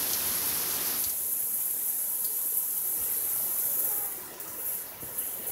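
Steady rain falling, a continuous hiss that drops off somewhat about four seconds in.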